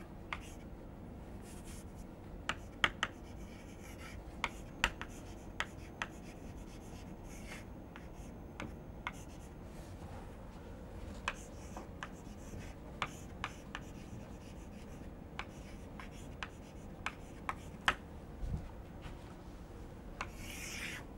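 Chalk writing on a blackboard: scattered sharp taps of the chalk against the board and faint scratching strokes, with a longer scrape near the end.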